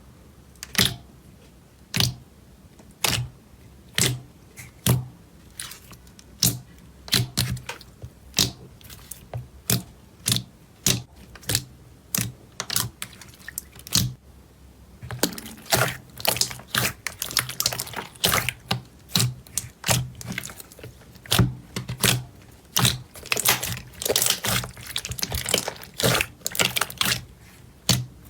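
Slime being pressed and poked by hand, making sharp clicking pops, about one a second at first, thickening into dense crackling from about halfway through.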